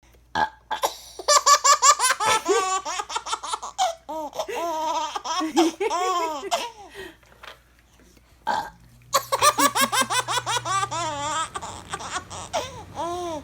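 A six-month-old baby laughing in two long fits of rapid, high-pitched laughs, set off by a woman burping.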